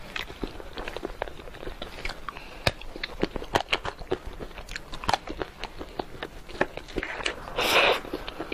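Close-miked chewing and crunching of chocolate: a stream of short, sharp crunchy clicks from the mouth. Near the end comes a louder, longer noisy burst lasting under a second.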